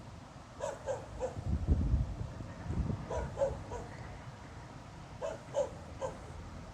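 A dog barking at a distance: short barks in clusters of two or three, coming every couple of seconds. A low rumble sounds about two seconds in.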